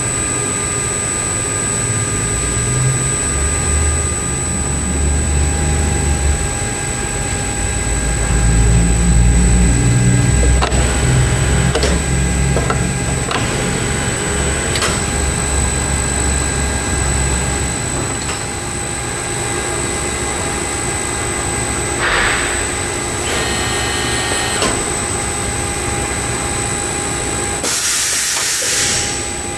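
Tauring Delta 50 three-roll angle bending machine running: its drive hums low and changes pitch in steps as the rolls turn, over a steady high whine, with a few clicks. A brief hiss comes near the end.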